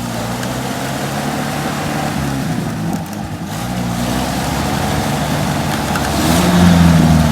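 UAZ off-road vehicle's engine running, revved up near the end.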